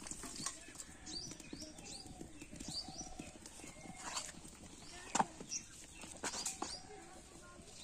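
Small birds chirping over and over in short, quick high calls, with a couple of sharp knocks about four and five seconds in.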